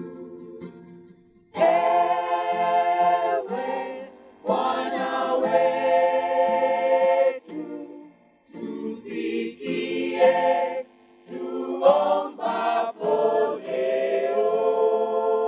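A choir singing slow, held chords in phrases, with short breaks between them and a long held chord near the end.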